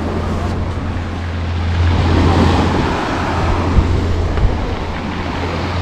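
Small fishing boat's engine running with a steady low hum, over the wash of sea waves that swells once midway.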